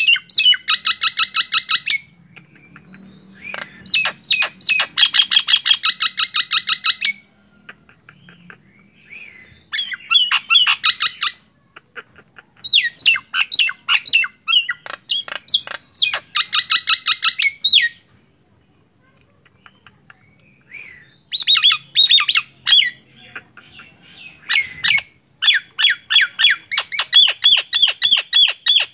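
Caged common myna calling in bouts of fast, harsh repeated notes, each run lasting a second or two, with short pauses between runs.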